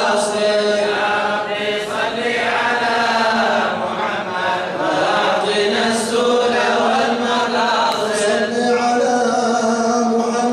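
Men's voices chanting a mawlid, devotional Arabic verse in praise of the Prophet Muhammad, in long, held melodic lines without a break.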